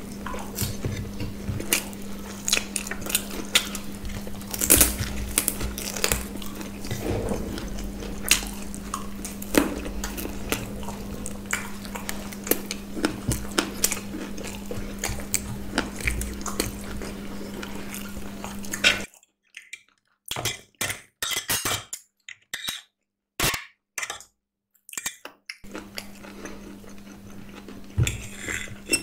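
Close-up eating sounds: chewing and crunching of food, with frequent sharp clinks of forks and spoons on plates, over a steady low hum. Near the end the hum cuts out for several seconds, leaving only isolated clicks.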